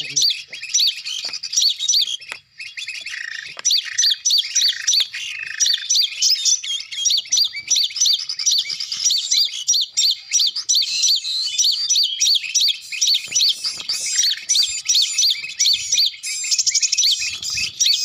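Looped recording of sogon bird calls played as a trapping lure: high, quick chirps repeated over and over at an even pace, with a few lower notes a few seconds in.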